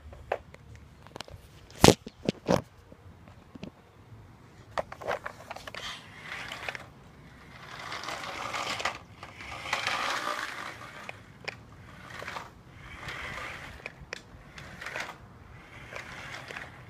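A few sharp knocks near the start, then repeated rushing, scraping swells about a second long as a toy RC buggy's tyres roll over the concrete garage floor.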